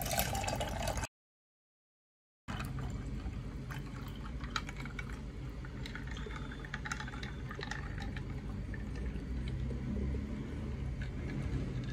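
Grape juice poured in a thin stream from a jug into a glass over ice cubes: a steady splashing pour with a few faint ticks. The sound cuts out completely for about a second and a half near the start.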